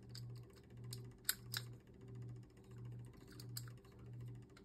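A Beyblade spinning top spinning on a clear plastic stadium floor, giving a faint low hum that swells and fades about one and a half times a second, with a couple of light clicks about a second and a half in.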